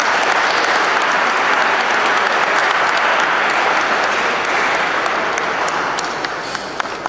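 Audience applauding, a steady wash of many hands clapping that begins to die down near the end.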